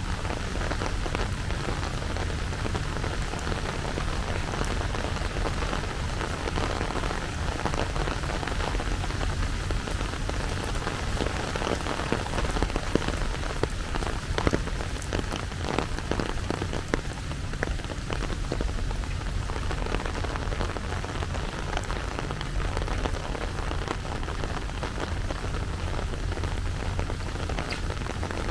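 Steady rain falling, with many close drops ticking sharply against the hiss. The drop hits are thickest and loudest around the middle.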